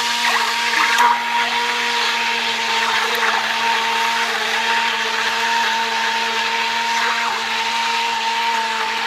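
Handheld immersion blender motor running at a steady pitch, its blade churning and puréeing chunks of cooked butternut squash soup in a pot.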